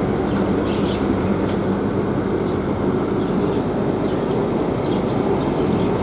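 Steady hum and hiss of aquarium air pumps and a bubbling sponge filter.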